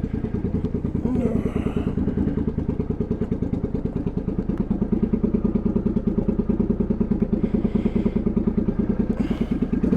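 Bobber motorcycle's engine idling with a steady, even pulsing beat.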